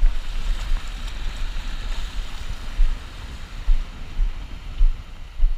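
Small waves washing up the beach as a foamy hiss that swells about two seconds in. Wind rumbles on the microphone, with a few low thumps.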